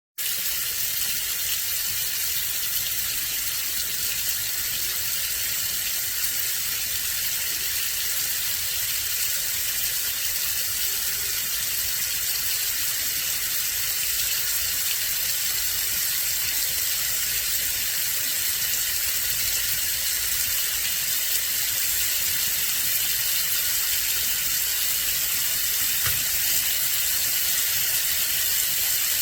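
Running water, a steady hiss with no breaks, starting abruptly.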